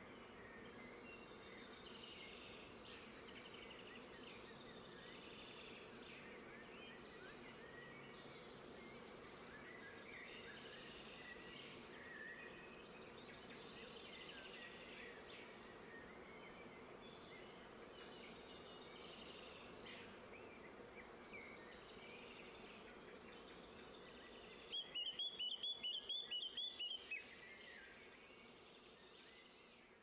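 Faint chorus of birds chirping and twittering over a steady low hum. Near the end one bird gives a louder, rapid trill of about a dozen notes, then the sound fades out.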